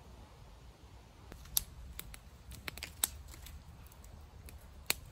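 Small twig fire crackling: scattered sharp pops and clicks at an irregular pace, a few a second, starting about a second in.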